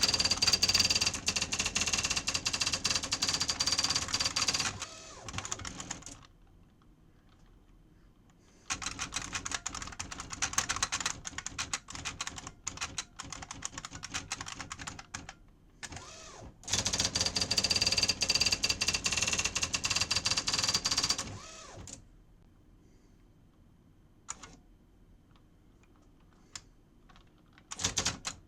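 IBM Wheelwriter 30 daisy wheel electronic typewriter typing. There are two long runs of very rapid, continuous strikes with a steady whine under them, one at the start and one in the middle. Between them come slower, separate keystrokes, then a near-quiet stretch with only a few clicks before more typing starts near the end.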